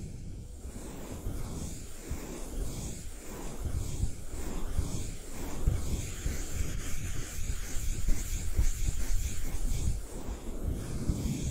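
Close-miked ASMR rubbing and brushing: a small brush-like tool worked against a surface right at the microphone in quick repeated scratchy strokes, with a low rumble from the contact.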